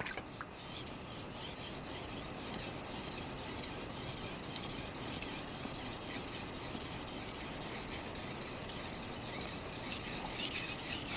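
Steel knife edge, a Hatsukokoro 210 mm gyuto, scraping back and forth on a wet Suehiro Cerax 1000 grit whetstone in a steady run of strokes. It is raising a burr along the heel section of the secondary bevel on this medium stone.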